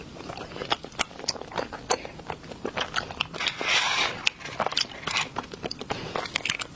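Close-miked eating: crisp bites and chewing, a quick irregular run of sharp crunchy clicks, with a longer, louder crunching stretch about three and a half seconds in.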